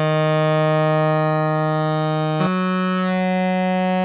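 Sustained synthesizer note played through an EarthQuaker Devices Pyramids flanger pedal in barber pole up mode, set to a slow sweep. The note changes pitch about two and a half seconds in.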